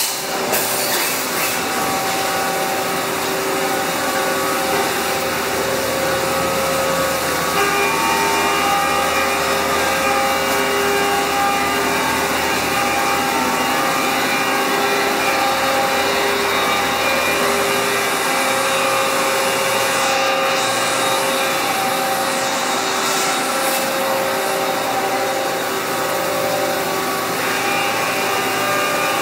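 Doosan Puma V550 CNC vertical turning center running: a steady mechanical whir with several tones that step to new pitches a few times as the machine changes speed.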